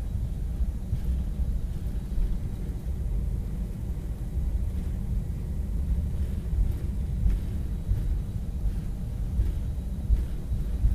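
Low, steady rumble inside the cabin of an Airbus A319 taxiing: engine and rolling noise heard through the fuselage.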